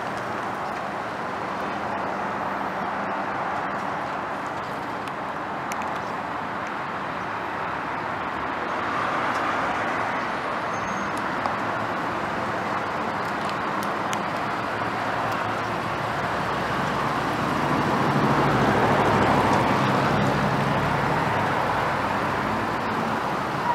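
2005 Chevy Avalanche's 5.3-litre Vortec V8 with the truck on the move: a steady engine hum under road and tyre noise, growing louder about nine seconds in and again near the end.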